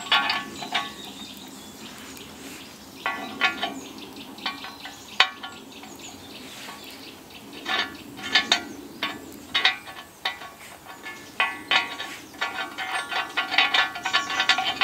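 Metal legs being worked into a cast iron griddle plate: bursts of ringing metallic clinks and rattles.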